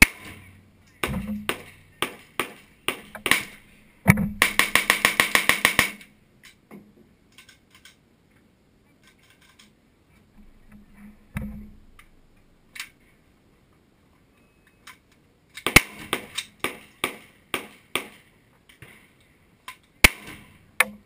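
Glock 17 Gen 4 9mm pistol shots: a string of about six shots roughly half a second apart, then a fast run of about a dozen shots in under two seconds. After a pause comes another quick string of about six, then two single shots near the end.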